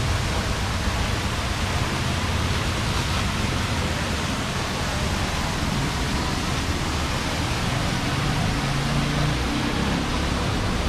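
Steady rushing noise of a waterfall and its rocky stream, even throughout, with a low rumble underneath.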